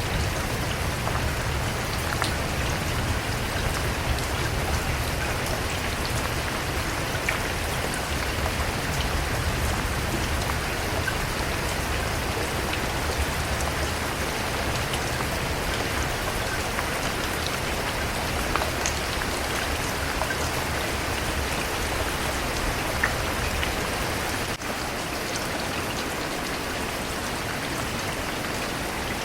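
Steady rain falling on a surface, with scattered individual drops ticking through the even hiss. A low rumble underneath drops away after a brief dip about three quarters of the way through.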